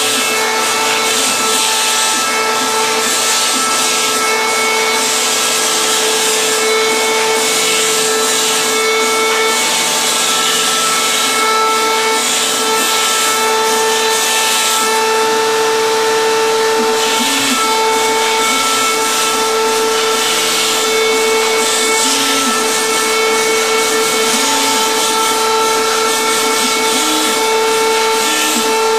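PhlatPrinter MKII CNC machine cutting foam board: its spindle runs with a steady whine while the drive motors move the foam sheet and carriage. The motors' shorter tones start, stop and shift in pitch as each move changes, with a hiss of cutting that comes and goes.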